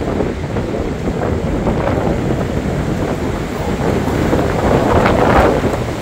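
Strong, gusting storm wind of around 40 to 45 mph blowing hard across the microphone, swelling into a stronger gust about five seconds in.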